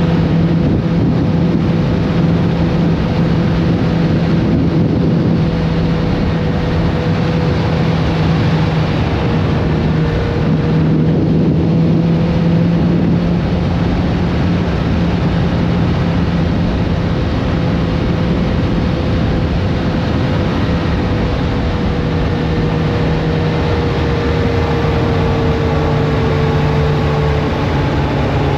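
Kawasaki Z900RS Café's inline-four engine running at a steady cruise, with a steady rushing noise. Near the end the engine note drops as the bike eases off.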